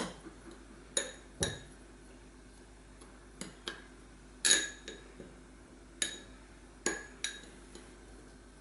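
Metal teaspoon clinking against a small glass tumbler while pressing a butter-biscuit crumb base down into it. About nine irregular clinks, each with a brief glassy ring.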